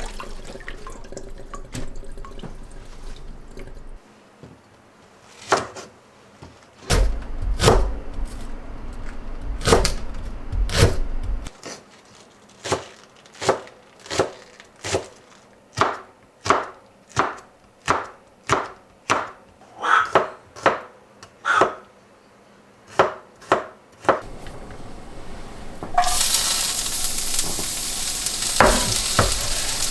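A kitchen knife chopping on a wooden cutting board in a long run of sharp, evenly spaced strokes, about one and a half a second. A few seconds before the end, food starts frying in a hot pan with a loud, steady sizzle.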